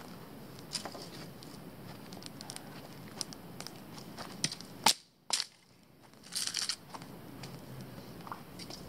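Scattered crackles and snaps from a small campfire and from dry twigs and leaf litter crunching underfoot, with one sharp snap about five seconds in and a short crunching burst a second or so later.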